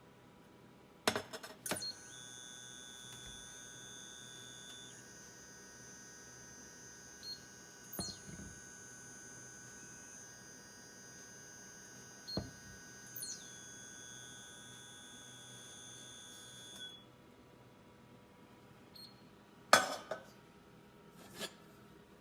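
Frigidaire FGIC3066TB induction cooktop giving off a high-pitched whine, several steady high tones at once, with a few short beeps and a change in the tones partway through. The whine cuts off a few seconds before the end, and there are a few clicks or knocks near the start and near the end.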